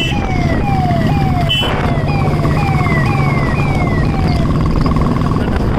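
Police vehicle siren wailing in quick falling sweeps, about two a second, over the low running of motorcycle engines.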